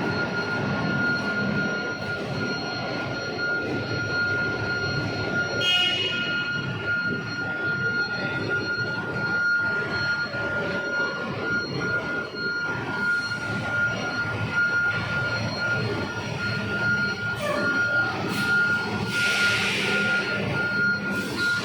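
Heavy truck engine running in the enclosed car deck of a ferry, a steady rumble under a constant high whine. A short burst of hiss comes near the end.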